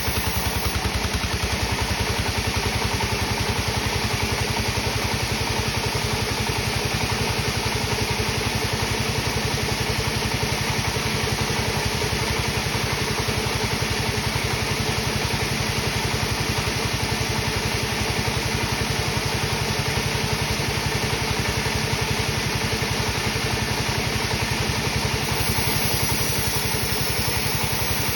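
Sawmill machinery running steadily: an even, engine-like hum with a fast regular pulse that does not rise or fall.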